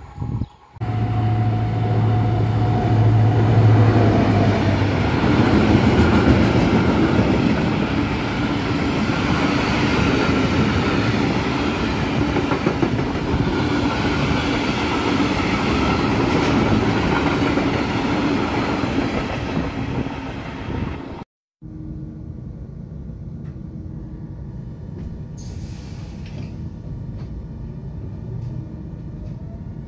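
A train passing loudly for about twenty seconds, with a low steady hum in its first few seconds. It cuts off abruptly and gives way to a quieter, steady train rumble.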